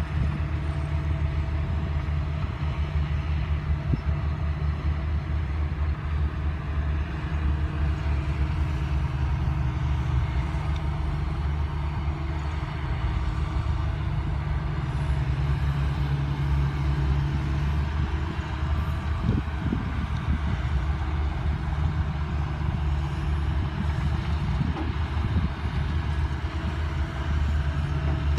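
Engine of a fishing boat running steadily, a low unchanging drone.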